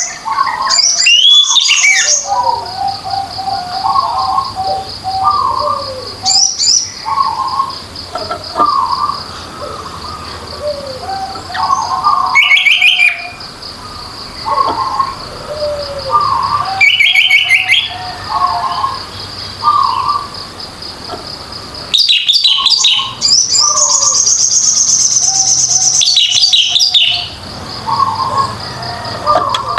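Orange-headed thrush singing loud, varied song phrases in bursts every few seconds, with the longest run near the end. Short lower notes repeat about once a second underneath, over a steady high pulsing trill.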